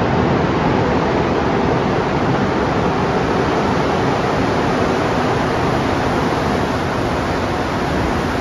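Montreal métro MR-73 rubber-tyred train entering the station, a loud, steady rushing rumble of its tyres and running gear that eases slightly near the end.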